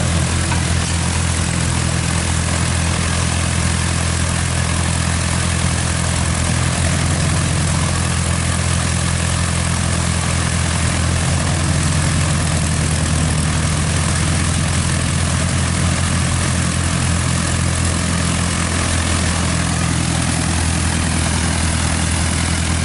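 Light aircraft's piston engine and propeller running steadily at idle, close by.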